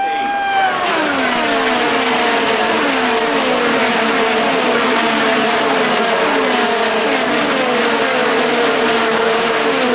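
A line of IndyCars passing one after another, each car's twin-turbo V6 dropping in pitch as it goes by, in a steady stream of about two cars a second.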